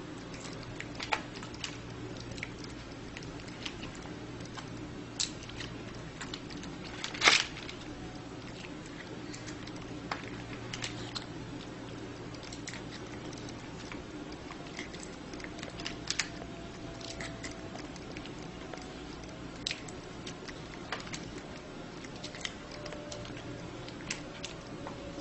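Irregular light clicks and taps of chopsticks and a plastic food bowl while a kitten is hand-fed, with one louder click about seven seconds in, over a steady low hum.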